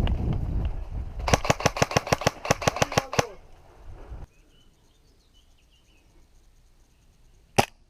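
Airsoft gun firing a rapid string of about a dozen sharp shots at roughly seven a second. This follows some movement rumble on the microphone and ends abruptly. A single louder shot cracks near the end.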